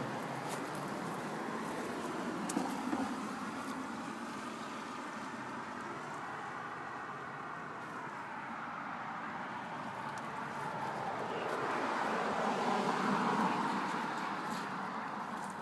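Steady road traffic noise, with a vehicle passing that swells and fades about twelve seconds in.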